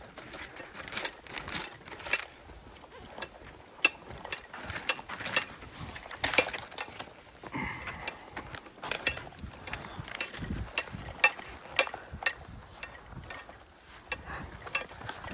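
Irregular sharp clicks and knocks, some with a brief high metallic ring, mixed with short scrapes, like tools or materials being handled.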